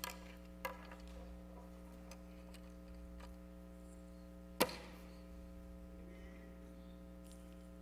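Quiet pause with a low steady hum and a few faint clicks, the clearest about four and a half seconds in.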